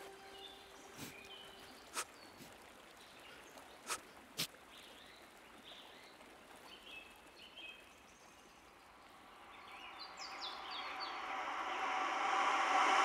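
Quiet outdoor ambience: a faint steady hiss with a few sharp clicks in the first half and short high bird chirps. A broad rushing noise swells up over the last few seconds, growing steadily louder.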